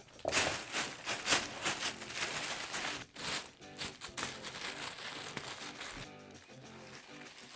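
A bag crinkling and rustling in quick irregular strokes as a kitten plays in it, loudest in the first few seconds and then dying down, over background music.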